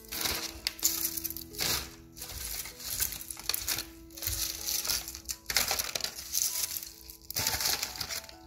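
A paper envelope crinkling and crisp fried sea mustard rustling inside it as the seaweed is handled and pushed in, in uneven bursts about every second.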